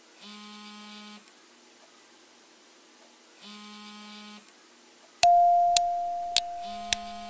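Two buzzy electronic tones about a second long and about three seconds apart, like a telephone ringing tone. Then a loud sustained synthesizer note with evenly spaced sharp ticks starts, as the background music begins.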